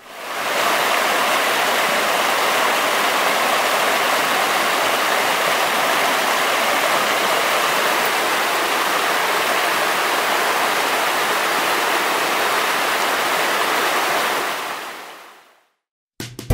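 Steady rush of fast-flowing water, like rapids or a waterfall, fading in at the start and fading out near the end.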